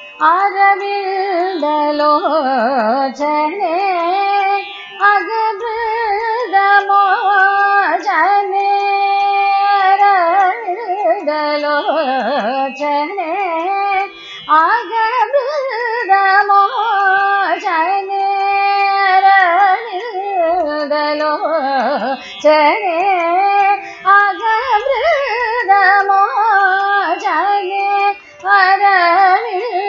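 Female Carnatic vocalist singing long phrases in raga Gowri Manohari, her pitch oscillating through dense gamaka ornaments, over a steady drone. Brief breaks for breath come about 14, 22 and 28 seconds in.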